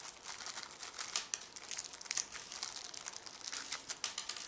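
Small clear plastic bag crinkling as it is handled in the fingers, a dense run of sharp crackles.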